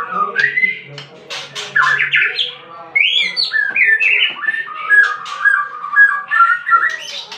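Murai blorok songbird singing a rapid, varied song of whistled notes and glides mixed with harsh chattering calls, ending in a run of quick short notes repeated in the last couple of seconds.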